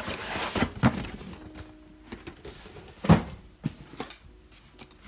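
Cardboard model-kit boxes being handled and set down against a shipping carton: a few knocks and scuffs, the loudest knock about three seconds in.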